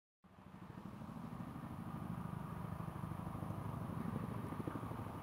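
Boeing CH-47 Chinook tandem-rotor helicopter in flight, its rotors giving a steady, fast, faint beat. The sound fades in after a brief silence at the start.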